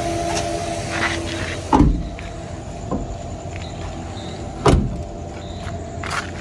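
Two heavy thumps about three seconds apart, with a few lighter knocks, over a steady low hum.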